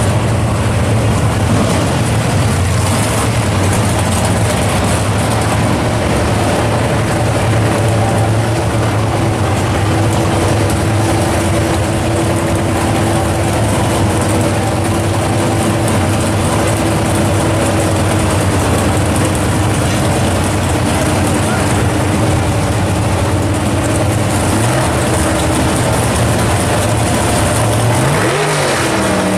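Engines of two drag cars, a Chevelle and an early Chevy II Nova, idling loud and steady while staged at the starting line. Near the end they rev up with a rising pitch.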